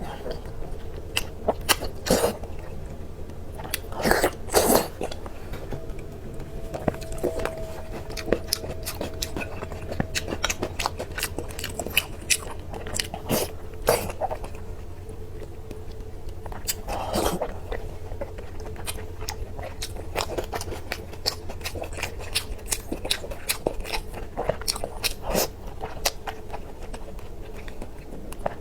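A person eating close to the microphone: crunchy bites and chewing, with many short crisp crackles and a few louder crunches.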